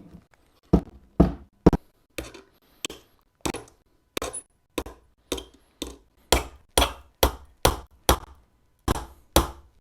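A hammer driving a nail into the wood of a birdhouse roof panel: about twenty sharp strikes, roughly two a second, uneven in strength.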